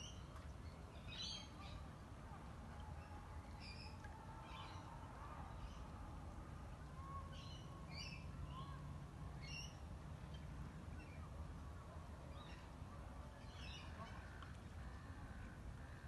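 Birds chirping now and then: short high calls scattered through, over a faint steady low rumble.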